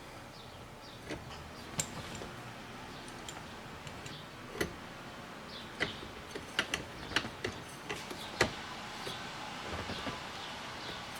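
Irregular metallic clicks and knocks of hand tools and a steering wheel lock plate tool being fitted and worked on a C3 Corvette steering column, to press down the lock plate and free its retainer. The clicks are scattered, a few close together near the middle, the sharpest about eight seconds in.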